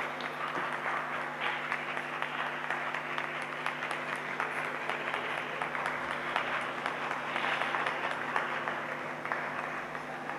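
Applause from many people, a dense steady clapping that goes on throughout, over a faint steady low hum.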